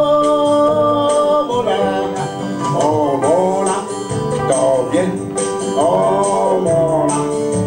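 Music: a man singing into a microphone over backing music with a steady beat.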